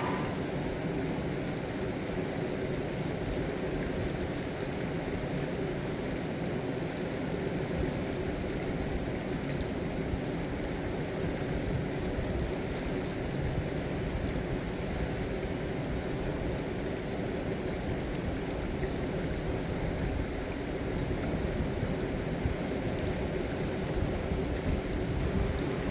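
Rushing water of the Brooks Falls whitewater rapid, a steady roar with no let-up.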